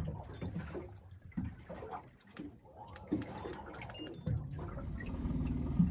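Water lapping and sloshing against a small boat's hull, with a few light knocks. About four seconds in there is a brief high beep, then a steady low boat motor hum with a fast even pulse comes in.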